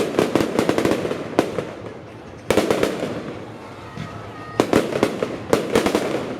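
Fireworks display: volleys of rapid, crackling bangs in three bursts, with a single bang between the first two.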